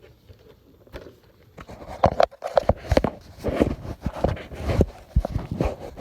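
Handling noise: a dense run of irregular clicks and knocks starting about one and a half seconds in, after a quiet start.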